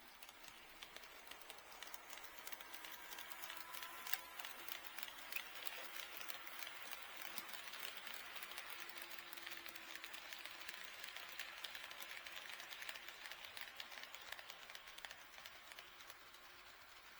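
HO-scale model train running past on the track, its wheels ticking rapidly over the rail joints, growing louder, then fading away near the end.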